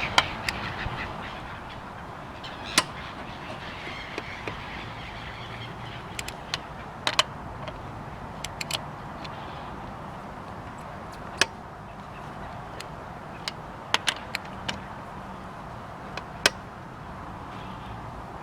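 Scattered sharp metallic clicks and knocks of a wrench being worked on a car's wheel bolts to loosen them, over a steady background hum.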